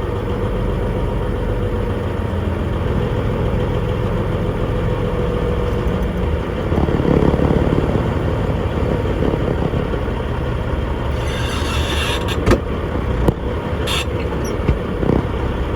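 International 9900i semi truck's diesel engine running steadily as the truck creeps along at low speed. It swells briefly about seven seconds in. Near the end come a short hiss and a few sharp clicks.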